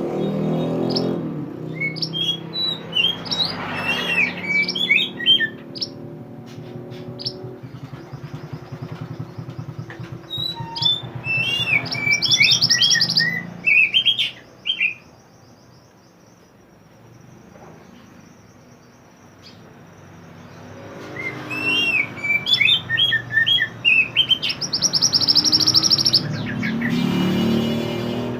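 A mantenan songbird singing in three bursts of quick, high, varied chirps and trills, with a quiet pause of a few seconds in the middle. A low steady hum runs under much of it.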